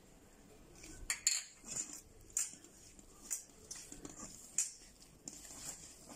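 A hand mixing ground spice powders in a stainless steel bowl: fingers scrape and rub against the steel in repeated short strokes, about one to two a second, starting about a second in.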